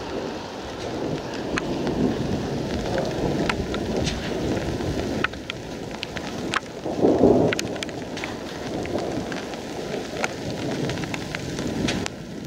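Steady rain in a thunderstorm, with a low rumble of thunder underneath and scattered sharp ticks of drops striking close by. A louder rush swells briefly about seven seconds in.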